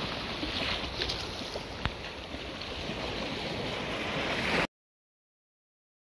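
Shallow sea water surging and washing close by, with wind rumbling on the phone microphone and a sharp tick about two seconds in. The sound cuts off abruptly to dead silence with over a second to go.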